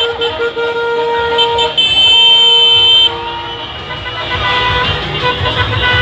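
Several car horns honking and overlapping in a celebrating car parade; the loudest, a long steady blast, cuts off suddenly about three seconds in, with a low rumble of passing cars underneath.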